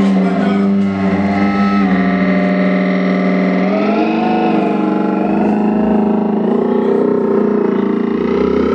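Sustained distorted drone from a chain of effects pedals: a pitched tone with many overtones that holds steady, swoops up and back down about four seconds in, then turns rougher and noisier as the knobs are turned.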